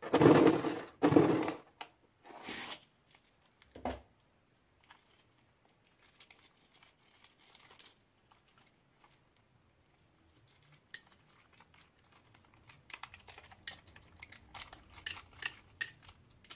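Hands handling a rubber balloon and opening it over slime, with crinkling and rustling rubber; a few loud swishes in the first four seconds, then many light clicks and crackles near the end as the small plastic gems inside spill out.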